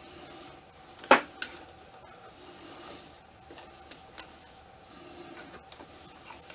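Cloth rustling and light handling as a shirt is worked onto a ball-jointed doll's body. There is a sharp click about a second in, a smaller one just after, and a few faint ticks later on.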